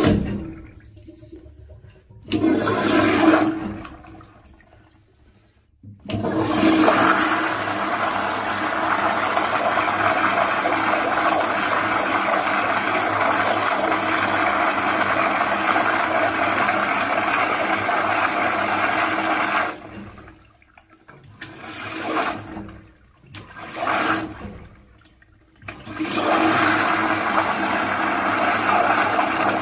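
American Standard Afwall Millennium flushometer toilet bowl flushing, water rushing and swirling through the bowl. It comes in short gushes at first, then runs as a long steady rush for about fourteen seconds. Two brief gushes follow, then the steady rush returns near the end.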